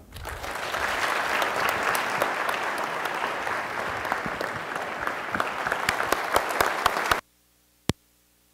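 Audience applauding. The applause builds within the first second and cuts off abruptly about seven seconds in. A single sharp click follows in the near silence.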